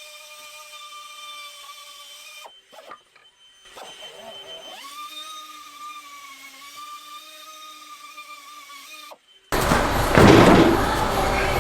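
A small motor's steady, slightly wavering high whine, in two stretches with a break of about two seconds between them. About nine and a half seconds in it cuts off and a much louder, dense sound takes over.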